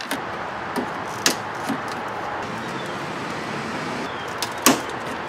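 Hand screwdriver working the headlight mounting screws on a Volvo 940, with a few sharp metal clicks over a steady background hiss; the loudest click comes near the end.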